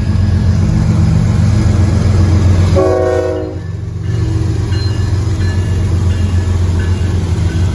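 CSX diesel-electric freight locomotives running past close by with a steady heavy engine drone, and a short blast of the train horn about three seconds in.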